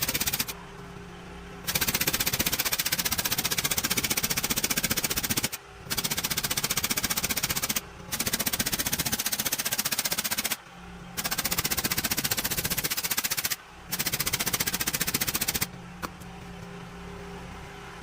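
Pneumatic impact tool hammering in fast rattling bursts of two to four seconds, six times over, with brief pauses in which a steady machine hum carries on.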